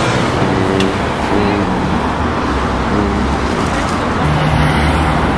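Road traffic: motor vehicle engines running close by on a street, with a steadier low engine note coming in about four seconds in.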